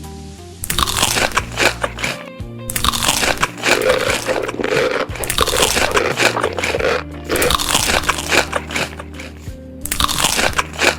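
Loud crunching of crispy food being bitten and chewed close to the microphone, in long stretches with a few short breaks, over steady background music.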